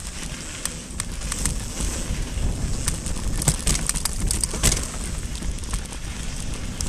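Mountain bike descending a dry, loose dirt trail: low wind rumble on the microphone with the crunch of tyres over gravel, and frequent sharp clicks and rattles as the bike goes over small stones.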